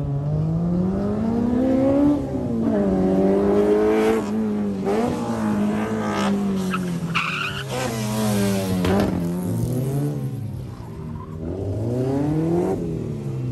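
A car's engine revving hard, its pitch climbing and dropping again and again as it is driven flat out through a cone course. The tyres skid, with a short tyre squeal about halfway through.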